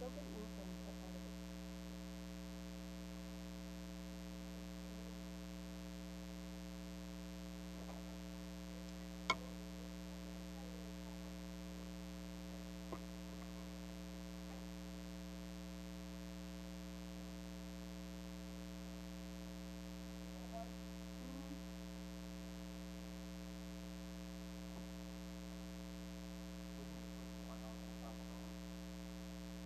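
Steady electrical mains hum. A single sharp click comes about nine seconds in and a fainter one near thirteen seconds.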